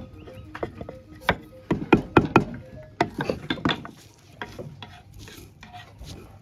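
Spice paste being pounded and ground with a mortar and pestle: a series of sharp knocks in quick runs about two and three seconds in, with rubbing and grinding between them.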